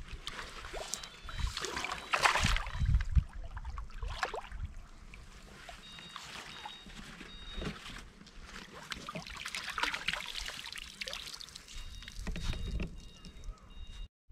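Lake water splashing and sloshing as a carp is released from a wet retention sling in the shallows, loudest about two seconds in. Later the sling is lifted out and water trickles off it.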